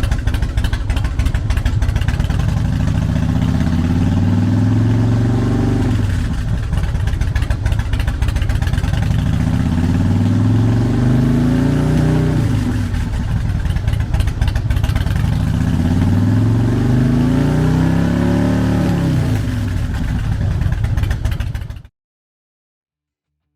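2006 Harley-Davidson Night Train's 88 cubic inch V-twin, breathing through Vance & Hines pipes, running at idle and revved three times. Each rev climbs over two to three seconds and then falls back to idle. The sound cuts off suddenly near the end.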